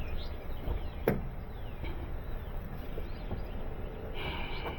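A single sharp click about a second in as the key is turned, and the engine does not crank: a no-start that the mechanic puts down to a connection problem, possibly the starter.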